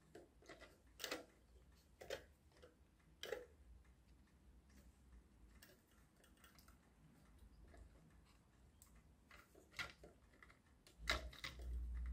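Faint, scattered light clicks and taps from hands handling a small 3D-printed plastic car and its wooden mousetrap while tying string. There are a few sharper clicks about a second apart near the start and two more near the end.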